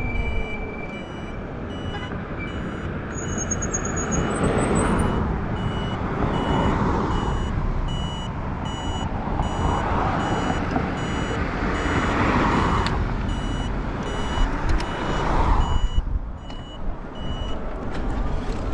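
An electronic turn-signal beeper on the e-bike's mirror beeping steadily at about two beeps a second while a left turn is signalled, stopping shortly before the end. Under it run wind rumble on the microphone and several swells of road noise.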